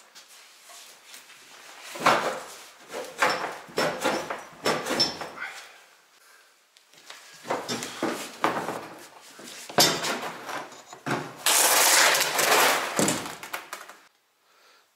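Plastic car fuel tank being forced out from under the car: irregular hollow knocks and clunks as it is pushed and twisted against the underbody and axle beam, ending in a long, loud scrape of about two seconds as it is pulled free.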